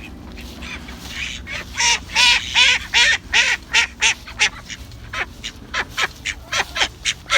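Domestic ducks quacking: a quiet start, then from about two seconds in a steady run of short quacks, two or three a second.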